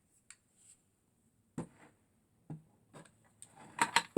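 Clicks and knocks of tools and hard parts being handled during reassembly of a vacuum cleaner: a few separate taps, then a quick run of clicks near the end.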